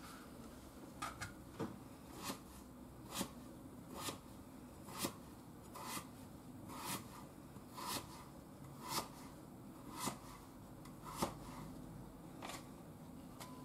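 Kitchen knife cutting a peeled potato into chunks on a cutting board: a short knock of the blade reaching the board about once a second, some fourteen cuts.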